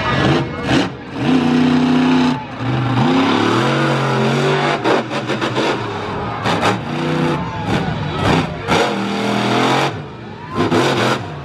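Monster truck engine revving hard, climbing and dropping in pitch again and again as the throttle is worked, with several short sharp cracks between the revs.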